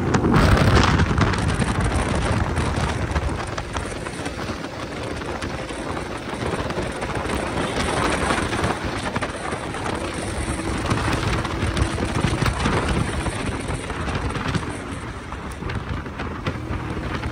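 Wind rushing over the microphone with road noise from a moving motorcycle, loudest about a second in.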